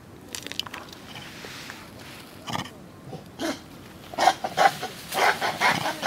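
Japanese macaques calling in short bursts, with a quick run of louder calls over the last two seconds.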